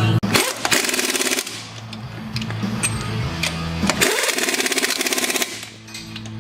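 Music playing, with two bursts of fast, even mechanical rattling from a power tool, one right at the start lasting about a second and a longer one about four seconds in.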